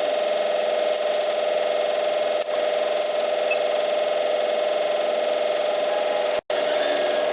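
Steady whirring of a workshop machine running continuously, with a few light clicks; the sound stops dead for an instant about six and a half seconds in.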